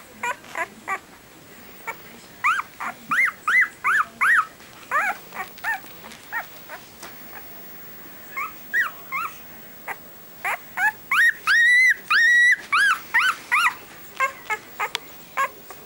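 Five-day-old Siberian husky puppy whining and squeaking in a run of short, high, arching cries. About eleven seconds in come a few longer held cries, the loudest of the run.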